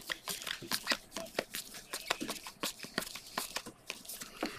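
Football trading cards being flipped through by hand, each card sliding and snapping against the next in a quick, irregular run of light clicks, several a second.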